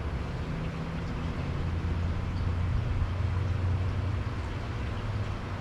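A low, steady rumble like a distant engine that swells through the middle and fades near the end.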